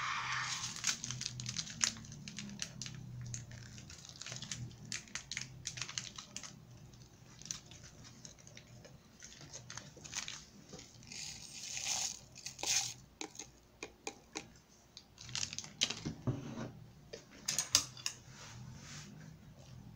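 Scattered clicks, light clinks and rustling of tableware and food being handled at a table. Near the end comes a quick cluster of clinks as a metal spoon tips instant coffee into a ceramic mug.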